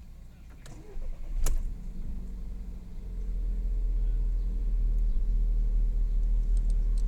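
VW Golf Mk6 1.4 TSI four-cylinder petrol engine starting with a sharp click about a second and a half in, then settling into a low, steady idle. This is the rough start-up running the owner took for a misfire and later traced to the cold-start catalyst fast warm-up mode, with the secondary air pump running.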